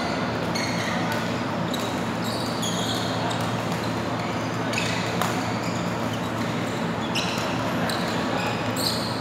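Badminton rally: sharp racket strikes on the shuttlecock every second or two, with short high squeaks of court shoes on the floor, over a steady low hum in the hall.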